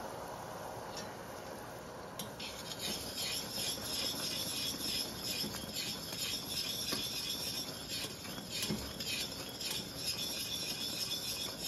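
Molten caramel in a stainless steel saucepan hissing as hot butter and cream are poured in, then bubbling up and crackling with a quick, repeated rhythm from about two seconds in as the foaming mixture is stirred.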